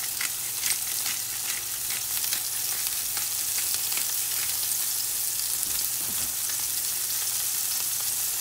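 Ground-beef burger patties frying in hot olive oil in a long skillet on high heat: a steady sizzling hiss with scattered crackles and pops.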